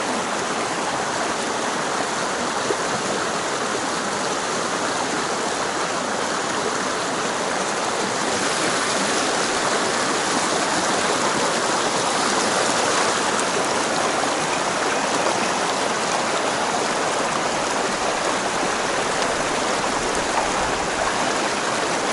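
Mountain stream water rushing in a steady, even wash, growing a little louder about a third of the way in.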